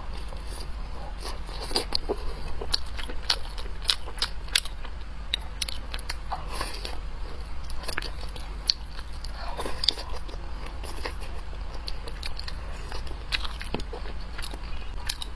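Close-miked eating: irregular bites and chewing with crisp crunches and wet clicks, several a second.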